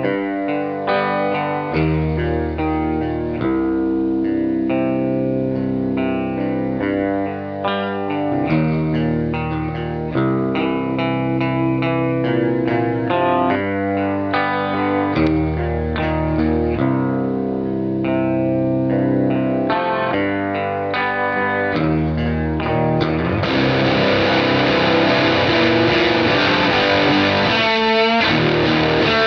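Electric Jazzmaster guitar with Alnico 2 pickups, played through effects: chords ringing and changing every second or two. About 23 seconds in it switches to a brighter, denser, distorted sound, with wavering pitch glides near the end.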